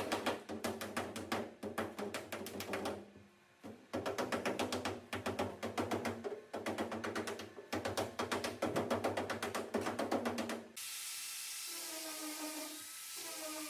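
Body hammer tapping rapidly on the car's sheet-metal roof panel, several taps a second in runs with short pauses, knocking down a dent. About eleven seconds in, the tapping stops and a handheld sander starts up with a steady whir that dips in pitch briefly as it is pressed onto the roof.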